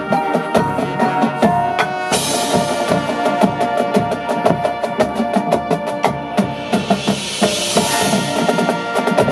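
High school marching band playing its field show: wind instruments sustain chords over drumline and front-ensemble percussion hits, with a bright crash about two seconds in.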